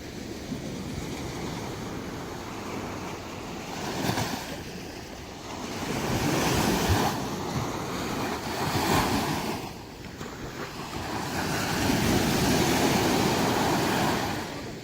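Sea surf breaking on a beach, swelling and easing in a series of waves every few seconds, with the longest and loudest surge near the end.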